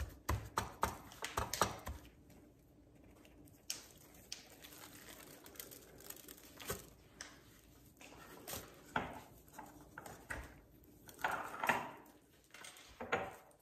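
Raw racks of ribs handled in a stainless steel pan as they are flipped over: a run of short clicks and taps at first, then a few scattered soft knocks and handling noises, the fullest ones near the end as the rack is laid back down.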